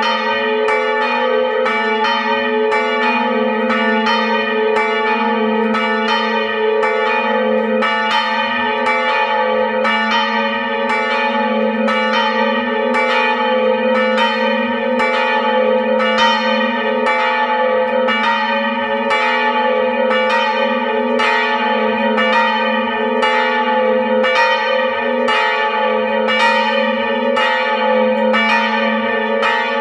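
Two swinging bronze church bells, of about 450 kg and 380 kg, pealing together, heard close up in the belfry. Their clappers strike in an even rhythm, about three strikes every two seconds, over a continuous ringing hum.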